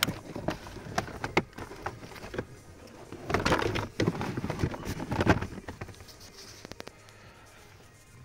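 Handling noise from work under the dashboard: a run of sharp plastic clicks and knocks, with two longer bouts of rustling and scraping about three to five seconds in.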